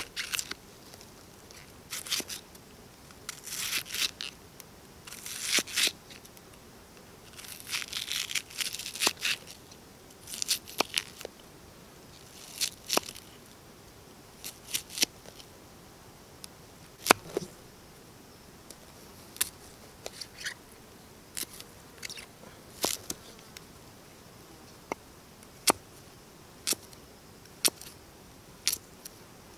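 Large knife cutting a raw onion on a wooden log-slice board: crisp, crunchy cuts in quick runs. In the second half these give way to single sharp chops of the blade knocking the wood, about one a second, and near the end it is cutting carrot.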